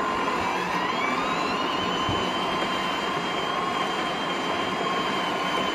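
Allett Stirling battery-powered cylinder (reel) mower running at full speed: a steady electric-motor whine with a higher tone that rises over the first second or so as it comes up to speed and then holds, over the whirring hiss of the reel cutting grass.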